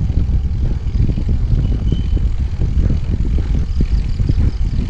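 Wind buffeting the action camera's microphone on a moving road bike: a loud, dense low rumble that flutters unevenly, with faint tyre noise from the concrete road beneath.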